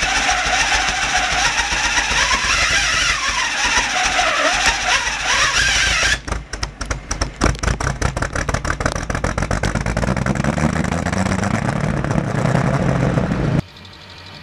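A GMC square-body pickup's engine cranking with a steady, wavering whir, then catching about six seconds in with ragged, uneven firing. It settles into running and revs up near the end.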